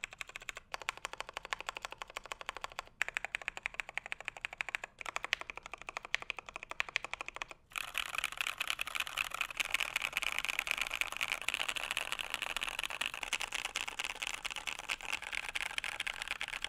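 KBD75 v3.1 mechanical keyboard with a polycarbonate plate, Cotton Candy light tactile switches and ePBT keycaps being typed on: short spells of key clicks with brief breaks between, then fast, continuous typing from about eight seconds in. The sound is on the higher-pitched side, with audible scratchy, plasticky noise.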